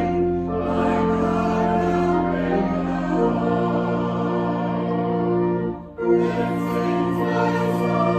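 A choir sings sacred music in long held chords over sustained low accompanying notes, with a brief break about six seconds in before the singing resumes.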